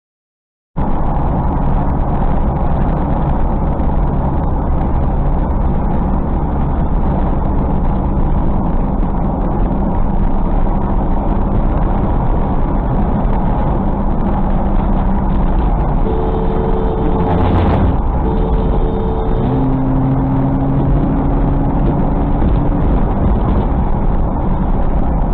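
Steady road and engine noise of a car driving at highway speed, heard through the dash cam. Past the middle a two-tone car horn sounds for about three seconds, broken by a short knock, then a lower single-note horn holds for about three seconds more.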